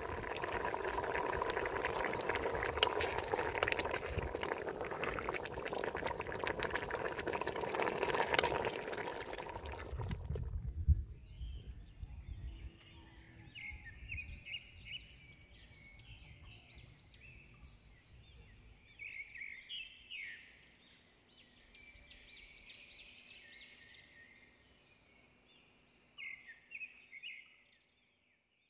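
Pot of jackfruit stew in coconut milk boiling hard, a dense bubbling with crackles, which cuts off suddenly about ten seconds in. Then quiet outdoor air with small birds chirping.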